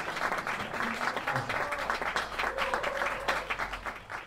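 Audience applauding, the clapping starting to die away near the end.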